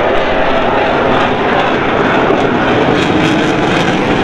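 Loud, steady engine noise of a military aircraft in flight.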